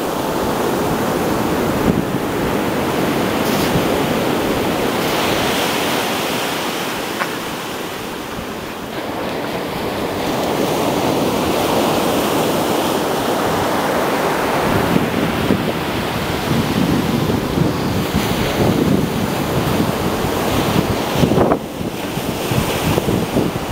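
Ocean surf breaking and washing in, a dense steady rush that swells and eases as waves roll through.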